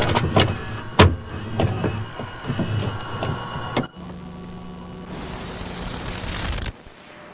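Clicking and whirring of a VCR's tape-loading mechanism, with several sharp clicks. At about four seconds it gives way to a steady low hum, then a burst of tape static hiss that cuts off suddenly near the end.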